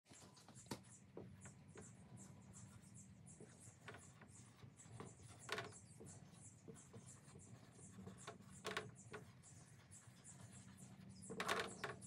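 Dry-erase marker writing on a whiteboard: faint, irregular squeaks and scratches as the felt tip strokes across the board. A few longer squeaky strokes stand out, the loudest near the end. A faint steady low hum runs underneath.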